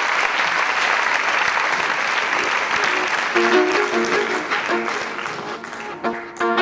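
Audience applauding, thinning out over the first few seconds, as a violin comes in with short notes about three seconds in.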